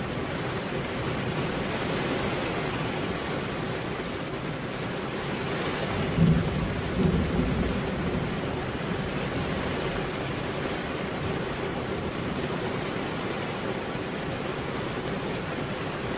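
Steady rain falling on a car window, heard from inside the car. About six seconds in there is a brief low rumble in two swells, the loudest moment, before the rain alone carries on.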